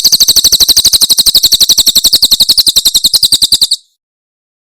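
Cililin bird singing its 'tembakan' phrase: a fast, even run of sharp, high chirps, about fourteen a second. The phrase stops abruptly near the end.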